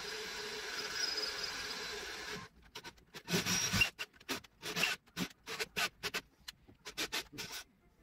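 Cordless drill boring through a metal plate, running steadily and stopping abruptly about two and a half seconds in. It is followed by a string of short, irregular scrapes and knocks.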